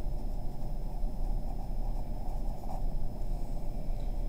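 Pencil writing on a paper workbook page, over a steady low hum.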